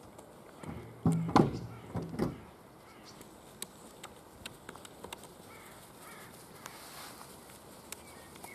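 Weimaraner puppies eating from metal bowls: small clicks and clinks throughout, with two short, louder, rough low sounds between about one and two and a half seconds in.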